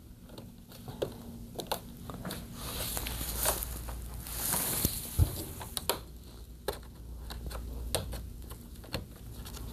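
Scattered clicks, rattles and rustling from hands and tools working on a flat-screen TV's plastic rear parts during disassembly, with a longer scraping stretch around the middle and one sharp thump about five seconds in.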